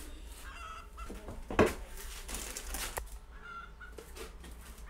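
Chickens clucking with short pitched calls, one near the start and one about three and a half seconds in. A single sharp knock about a second and a half in is the loudest sound.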